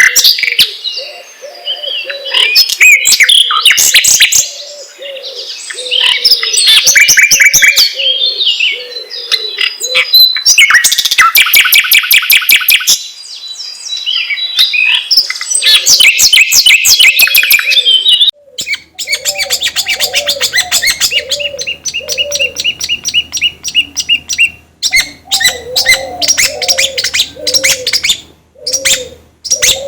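Caged songbirds singing loudly in fast chattering trills and chirps, played as lure audio to set kept songbirds singing. Under it runs a low dove-like coo repeated about twice a second. About two-thirds of the way in, the sound cuts abruptly to another recording with a faint hum under it.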